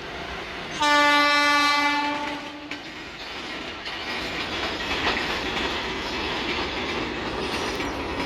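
Horn of twin WAG5 electric locomotives sounding one steady note for about two seconds, starting about a second in. It gives way to the rumble and wheel clatter of the locomotives and empty freight wagons running past at speed.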